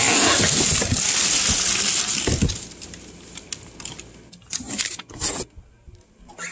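Packaging of a cat toy being torn and crinkled open, loud and dense for about two and a half seconds. After that it gives way to quieter rustling and a few light knocks as it is handled.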